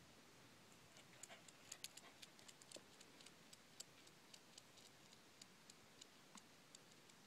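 Faint, irregular wooden clicks and clacks as a kendama ball is caught on the cups and spike. There are dozens of them, thickest in the first few seconds, over near silence.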